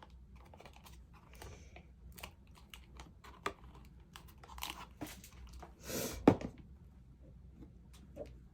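Paper or cardstock being handled and folded: scattered light rustles and crinkles with small clicks, and a longer rustle about six seconds in that ends in a sharp click.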